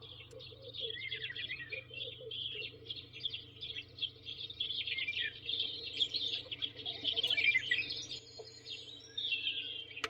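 Recorded birdsong alarm tone from a sunrise alarm clock's speaker: many overlapping chirps and trills. It starts and cuts off abruptly.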